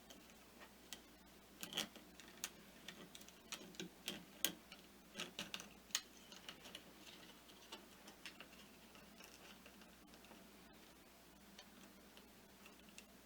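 Light, irregular clicks and taps of small plastic parts being handled: a 3D-printed tag, a suction cup and a piece of filament. The taps come thick for the first six seconds, then thin out to an occasional faint click.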